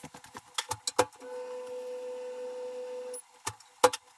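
A small motor runs steadily for about two seconds, a smooth whirring tone, with scattered clicks and knocks before and after it.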